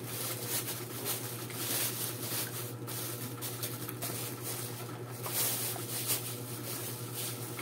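Plastic wrapping crinkling and rustling as it is pulled off a microphone boom arm, with irregular crackles, over a steady low electrical hum.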